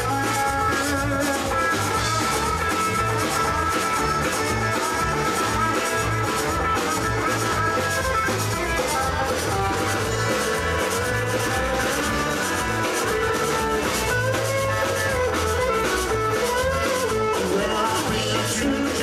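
Live Tex-Mex rock band playing an instrumental break: drum kit keeping a steady beat under electric guitar, bass and accordion, with a wavering lead melody on top.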